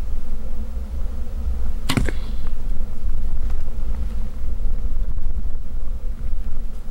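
A bow shot: one sharp crack about two seconds in as the arrow is released and strikes a javelina at close range, with a short whop and brief ring after it. A steady low wind rumble on the microphone runs underneath.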